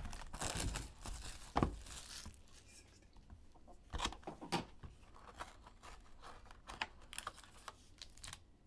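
Plastic wrapper being torn and peeled off a 2022 Classics Premium Edition football card box, a dense crinkly rustle with a sharp click about a second and a half in. After that, scattered short taps and rustles as the cardboard box is opened and handled.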